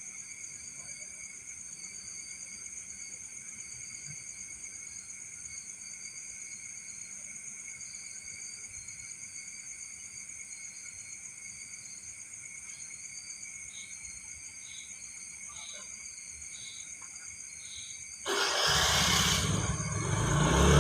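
Steady high-pitched night insect chorus of crickets, with a short chirp repeating about every 0.7 s for a few seconds in the middle. Near the end a loud, sudden rush of noise cuts in and drowns it out.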